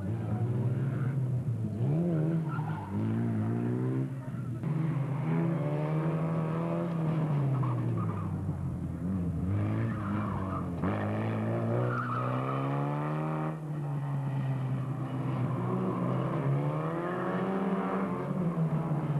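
Formula Ford single-seater's engine revving hard and backing off again and again, its pitch rising and falling every second or two as the car is driven through a slalom course.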